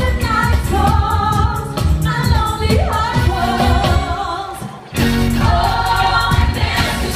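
Live pop music from a stage musical's closing number: the cast singing, a female lead with the ensemble joining, over the band's steady beat. The music drops away briefly about four and a half seconds in, then comes back in full at about five seconds.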